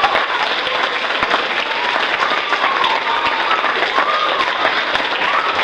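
Audience applauding, a dense clatter of many hands clapping, with high voices calling out over it.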